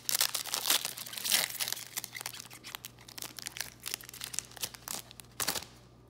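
Foil trading card pack being torn open and crinkled in the hands, a dense crackling that is loudest in the first second and a half, thins out, and ends with a short burst about five and a half seconds in.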